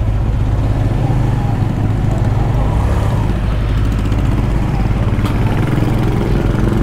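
Motorcycle engine running steadily at low speed, heard from the rider's seat, with a steady low hum. A single sharp tick comes about five seconds in.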